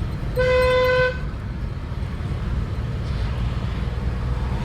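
A car horn sounds once, a steady single note lasting under a second, about half a second in, over the steady low rumble of the car driving.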